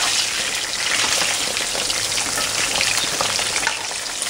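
Hot oil sizzling and crackling in a cast-iron skillet of frying chicken-fried cube steak: a steady hiss full of fine pops.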